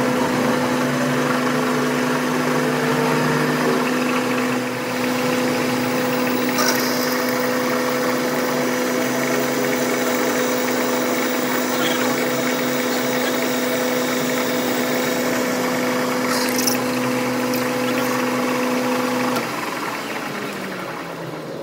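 A machine running steadily with a constant hum, which stops about nineteen seconds in; a couple of brief sharp clinks sound along the way.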